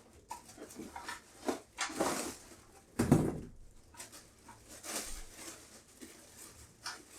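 Packaging and chair parts being handled: scattered rustling and light knocks, with one heavier thump about three seconds in.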